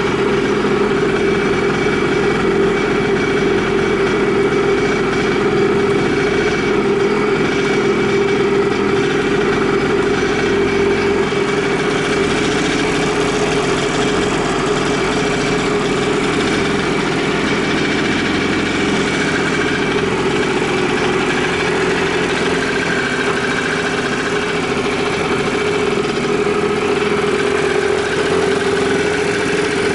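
Late-model Honda NS-1's 49cc liquid-cooled two-stroke single idling steadily at an even pitch, with no abnormal noises according to the seller.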